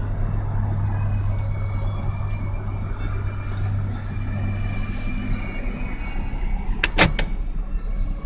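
Steady low hum of the parked van, heard from inside its cabin, with three sharp clicks in quick succession about seven seconds in.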